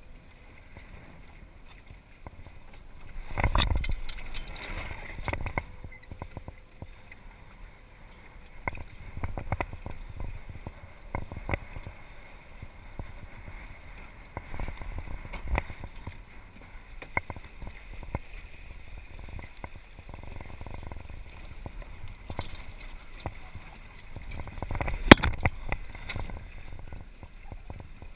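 Small sailing dinghy under way: water lapping and gurgling against the hull with wind on the microphone, broken by scattered short knocks from the hull and rigging. A louder surge comes about three seconds in, and a sharp knock near the end.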